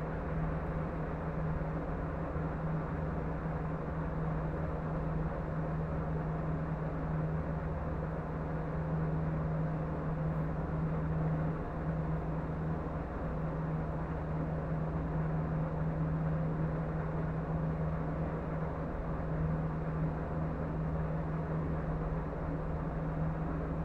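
A steady low hum over a constant hiss, unchanging throughout, with no bang or impact.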